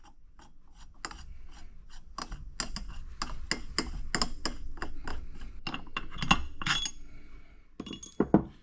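Quick run of light metallic clicks and clinks, several a second, as the bolts of a clutch-splitter tool are backed out of a Can-Am Maverick X3 primary clutch. A brighter clink near the end as a bolt is set down.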